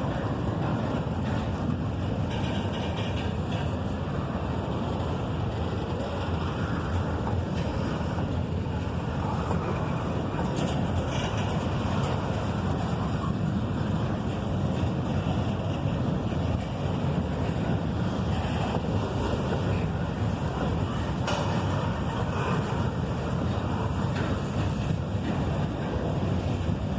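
CSX freight train's cars rolling past on the rails: a steady rumble and rush that stays even throughout, with wind on the microphone.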